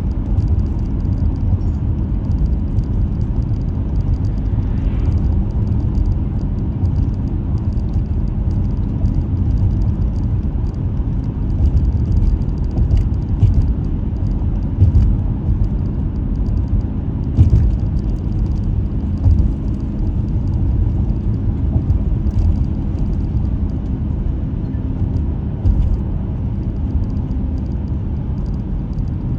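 Car driving along the road: a steady low rumble of engine and tyres, with scattered faint ticks and a few short louder knocks.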